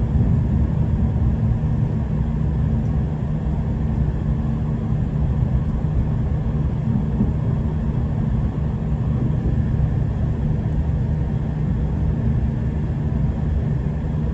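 Steady low rumble of a V/Line VLocity diesel multiple unit heard from inside a passenger carriage while running: engine drone and wheels on the track, with no sharp knocks or changes.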